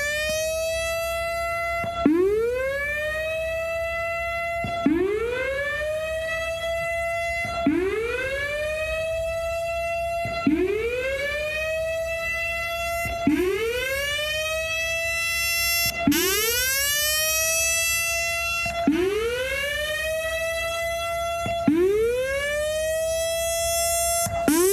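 Whelen WS-3000 electronic outdoor warning siren sounding a repeating whoop: each cycle the tone sweeps quickly up and then holds a steady pitch, then cuts off and starts over, about every three seconds.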